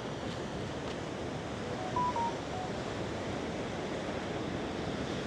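Ocean surf rumbling steadily against the rocks below, with wind buffeting the microphone. A few short faint beeping tones come through about two seconds in.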